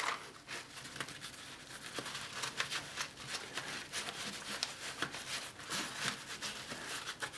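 Straps on the back of a Kydex holster being worked through the nylon webbing of a MOLLE panel: a run of rustling, scraping and small clicks of hard plastic against fabric, with a sharp click at the start.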